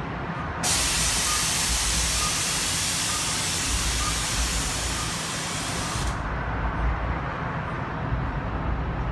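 Transit bus venting compressed air in a long, steady hiss that starts abruptly just under a second in and cuts off suddenly about five seconds later, over the low rumble of its idling engine.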